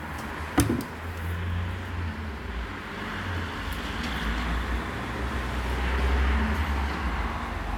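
A single sharp knock about half a second in, then a steady low rumble with rustling noise.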